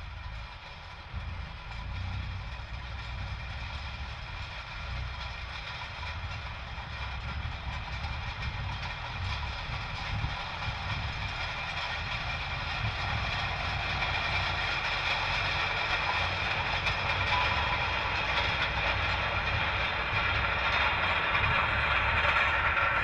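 John Deere 7430 tractor pulling a Pöttinger Terrasem seed drill across the field: a steady engine drone with a higher whine, growing gradually louder as the tractor draws nearer.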